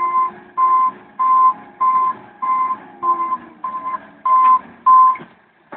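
Backhoe loader's reversing alarm beeping at a steady single pitch, about one and a half beeps a second, nine times, stopping about five seconds in. The machine's engine runs faintly underneath.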